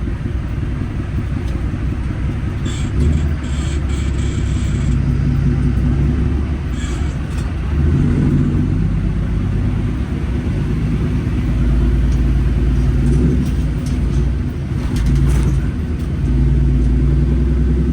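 The 600-horsepower Cummins diesel engine of an International 9900 truck running as the truck drives, a low rumble that swells and eases with the throttle.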